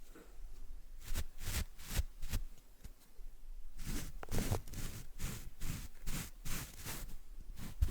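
Paintbrush bristles being squeezed and worked between fingers, making a run of short, irregular brushy swishes, at times several a second.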